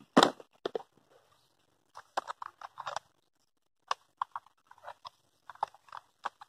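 Plastic tackle box being opened with a sharp click of its lid just after the start. Small clicks and rattles of terminal tackle follow as items are picked out of its compartments.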